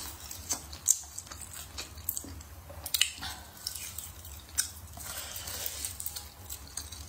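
Close-miked mouth sounds of a person biting into and chewing braised pork trotter on the bone, with scattered sharp smacks and clicks, the loudest about a second in.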